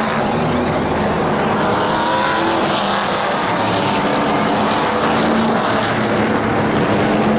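NASCAR Craftsman Truck Series V8 race engines running in a steady, loud drone as trucks circulate, with slowly gliding engine pitch. Short high-pitched zips from pit-crew air guns come through during the tyre change.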